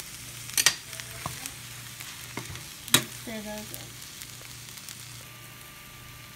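Rice, sliced hot dogs and butter beans sizzling in a stainless skillet while a spatula stirs raw eggs through them, with two sharp clicks of the spatula against the pan, about half a second in and again about three seconds in.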